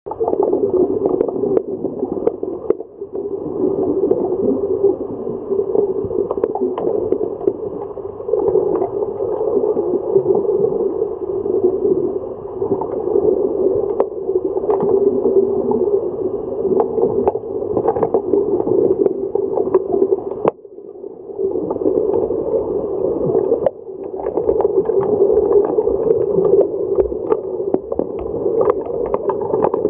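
Underwater hockey heard from below the surface: a steady muffled rush of water and bubbles, with many short sharp clicks and knocks from players' sticks, the puck and the pool floor. The sound dips briefly about 21 s in.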